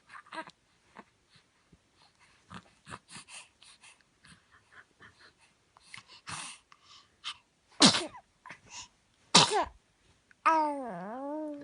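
A baby sneezing twice, about a second and a half apart, after a few faint short breathy sounds. Near the end a drawn-out voice with a wobbling, dipping pitch follows.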